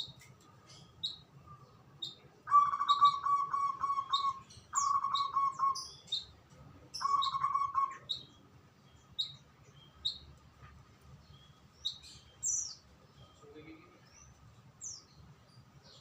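Songbirds chirping: short high chirps scattered throughout, with three louder, lower trilled phrases of rapid repeated notes, each a second or two long, starting about two and a half, five and seven seconds in.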